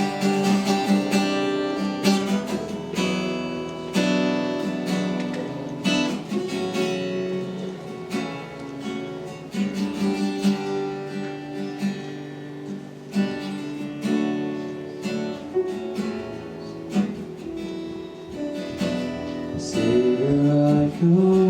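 Acoustic guitar strumming chords in the instrumental passage of a worship song.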